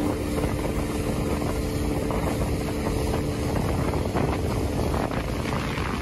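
A speedboat's outboard motor runs at speed with a steady drone. Water rushes along the hull and wind blows over it.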